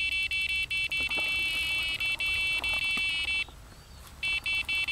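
Electronic carp-fishing bite alarm bleeping in a fast, unbroken run, the signal of a fish taking line on the rod. The bleeping stops for under a second about three and a half seconds in, then starts again.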